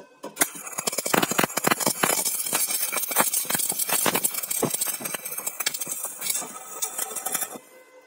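Stick-welding (MMA) arc on a coated electrode, struck about half a second in and then crackling and sizzling steadily as the bead is laid along the seam between thin steel sheet and a steel profile tube. The arc breaks off shortly before the end.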